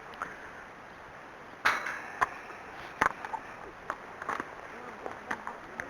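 Sharp metallic clanks and knocks of a field gate and its latch being worked from horseback. The loudest clank comes about a second and a half in and rings briefly, followed by a few lighter knocks and clicks.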